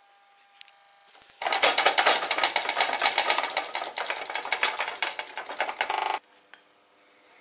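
Singer 29K33 shoe-patcher sewing machine turned by its handwheel, its mechanism clattering rapidly. It starts about a second in and stops abruptly.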